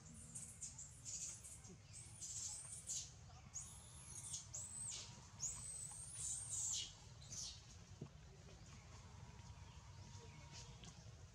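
A series of high-pitched animal calls, each about half a second long, repeated many times and dying away after about seven seconds, over a faint low rumble.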